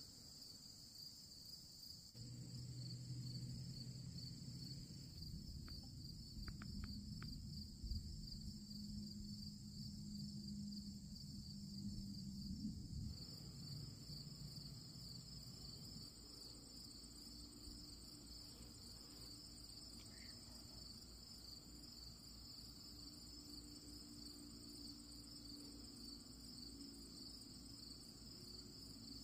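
Steady high-pitched chorus of insects such as crickets and katydids, unbroken throughout. A low rumble runs underneath during roughly the first half and stops abruptly about halfway.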